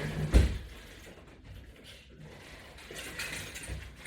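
A single heavy thump about half a second in, then quiet room noise.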